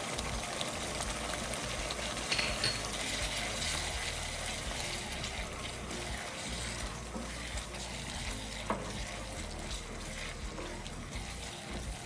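Prawns and squid being stirred through simmering tom yam sauce in a wok with a silicone spatula: a steady wet frying hiss with a few light knocks, the clearest about two and a half seconds in and near nine seconds.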